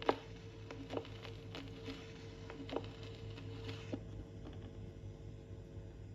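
Irregular light taps and clicks, about a dozen, the sharpest near the start, stopping about four seconds in, over a steady low hum.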